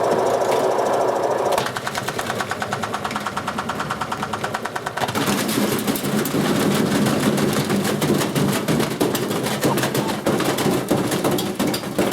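Old washing machine spinning with a badly unbalanced drum, shaking and knocking rapidly as it batters itself apart. The knocking becomes a quick regular clatter about a second and a half in, then turns louder and more chaotic about 5 seconds in.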